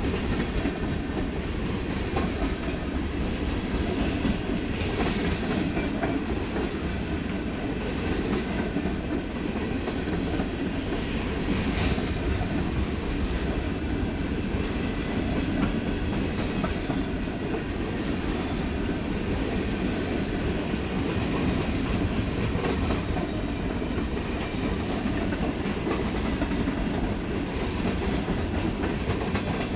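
Ferromex freight train cars rolling past: a steady rumble of steel wheels on rail with scattered clickety-clack from the rail joints.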